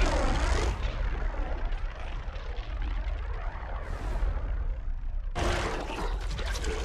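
Mechagodzilla sound effect from Godzilla vs Kong: a sustained mechanical, jet-like rushing noise with a sweeping, phasing quality. It eases after about a second, then cuts abruptly to a louder, rougher blast about five seconds in.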